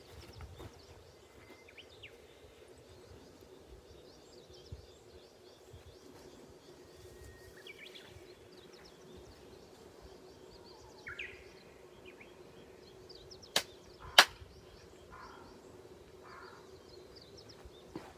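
Two sharp hand claps about half a second apart, the two ritual claps (kashiwade) of Shinto worship. Small birds chirp here and there over a faint steady hum.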